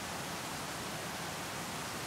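Rushing water: a steady, unbroken hiss spread evenly from low to high pitches, the sound of a waterfall or fast river.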